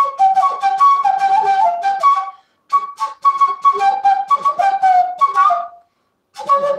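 Side-blown bansuri-style flute playing the melody of a folk-style song in short breathy phrases, with brief pauses for breath about two and a half seconds in and again near the end.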